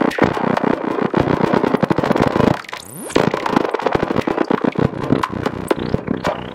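EMS VCS3 MkII analogue synthesizer putting out a dense, crackling stream of rapid irregular clicks over noise, with a sweep that rises and falls about three seconds in.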